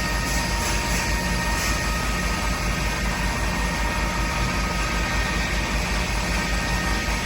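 CNC machine tool running during machining: a steady mechanical noise with a few constant high whining tones and a low pulsing hum underneath.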